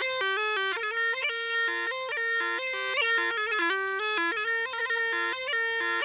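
Background music: a bagpipe playing a fast, ornamented melody of quick stepping notes.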